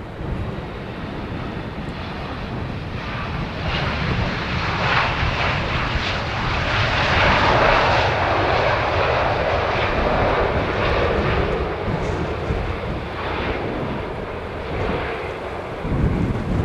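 Air Moldova Airbus A320-family airliner landing: a jet roar swells a few seconds after touchdown, peaks, then eases off as the jet rolls out on the runway, the sound of reverse thrust slowing it. A brief low rumble near the end.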